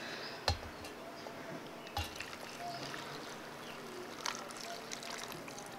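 Freshly boiled water poured from a metal saucepan into a paper instant-noodle cup: a faint trickle, with three light knocks spread through it.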